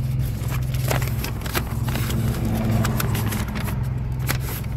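Car engine idling with a steady low hum, under a run of irregular clicks and rustles from the phone being handled.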